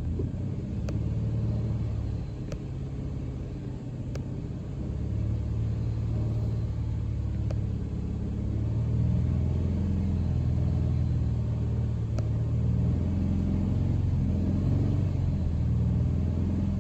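Ford Mustang V6 engine running with the alternator under heavy inverter load. Its sound is steady, growing louder about five seconds in and again around nine seconds as the revs come up, with a few faint ticks over it.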